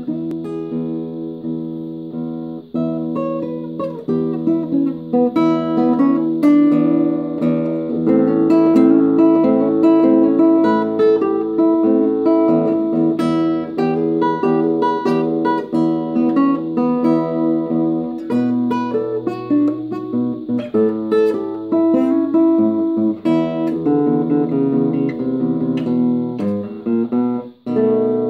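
Nylon-string classical guitar played fingerstyle: a blues tune of plucked melody notes over a repeating bass line. Near the end the playing breaks off briefly, then a chord rings out.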